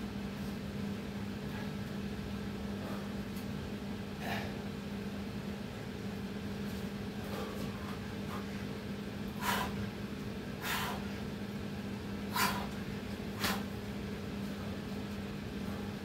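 A man's short, forceful exhales while he does push-ups and squats between burpees: five sharp puffs of breath, most of them in the second half, over a steady low hum.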